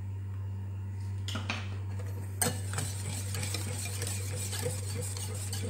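Wire balloon whisk beating a runny banana-cake batter in a bowl, its wires swishing and ticking against the bowl in quick strokes that begin after a sharp tap about two and a half seconds in. A steady low hum sits underneath.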